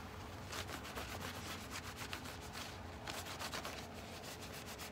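Cloth rag rubbing over ficus leaves in a run of quick, short wiping strokes, with a faint steady hum beneath.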